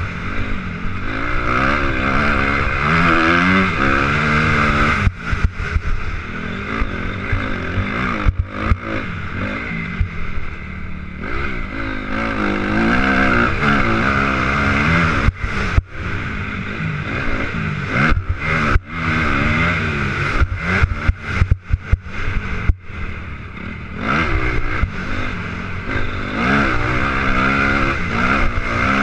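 Motocross bike engine revving hard and rising and falling in pitch as the rider accelerates, shifts and shuts the throttle around the track, with many brief sudden drops. It is heard from a helmet-mounted camera, with a steady rush of wind noise over the engine.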